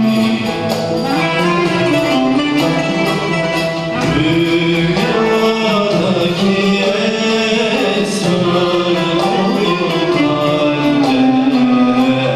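A male soloist singing a Turkish art-music song with a small ensemble of violin, ud and kanun playing along. His voice glides through ornamented lines, strongest from about four seconds in, over a regular rhythmic pulse.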